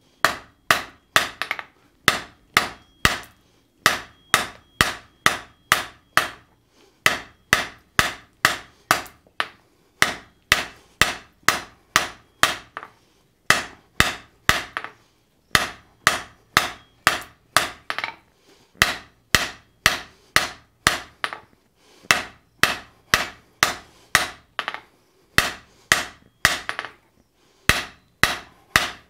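Hand hammer striking a hot bar on a steel anvil, drawing out a taper: sharp ringing blows at about two to three a second, in runs of several strikes broken by brief pauses.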